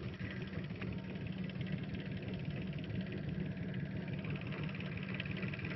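A fishing boat's engine idling steadily, a low even hum.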